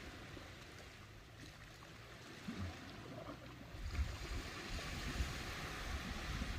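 Ocean waves at the shore: a low wash of surf that swells louder about two-thirds of the way through as a wave rushes in. Low thumps of wind on the microphone run beneath it.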